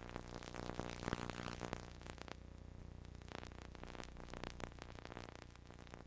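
Faint steady electrical hum with crackle and hiss on an old videotape recording. A last trace of the closing synthesizer music fades out in the first two seconds.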